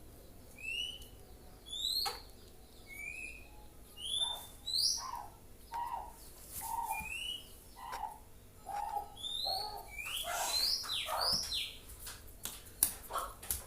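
A bird gives a repeated series of short upslurred chirps, about one a second, each paired with a lower note. The chirps grow denser around the tenth second, and a run of sharp clicks comes near the end.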